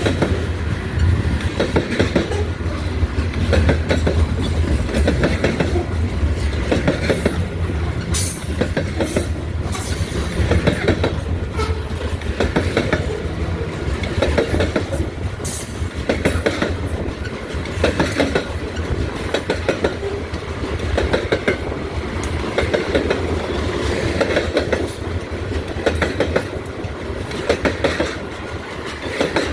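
Freight cars of a Delmarva Central Railroad train rolling past, their wheels clicking steadily over the rail joints over a low rumble.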